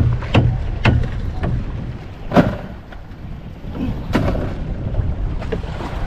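Fishing boat at sea: a steady low engine drone with a run of sharp knocks, about two a second at first, then a few scattered ones.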